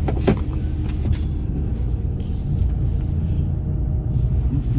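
Mercedes-Benz Actros truck's diesel engine running steadily, heard from inside the cab, with a sharp click about a third of a second in and a fainter one about a second in.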